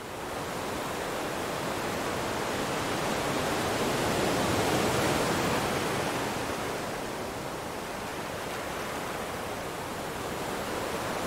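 Steady rushing noise of sea and wind on a cruise ship's open deck at sea, a little louder a few seconds in.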